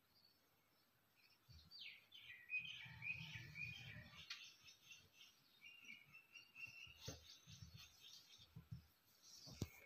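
Faint birds chirping in the background. Soft low thuds and a few sharp taps come from a tape measure and marker being handled on fabric.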